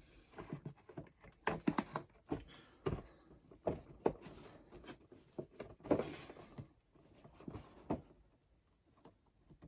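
A cardboard toy box with a plastic window being handled and opened: irregular clicks, taps and rustles of card and plastic, thinning out near the end.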